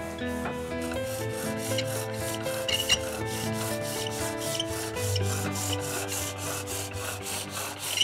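Hand-sanding of a wooden wind-instrument body clamped on the workbench: sandpaper rubbing back and forth at about four strokes a second. Soft background music with sustained notes plays underneath.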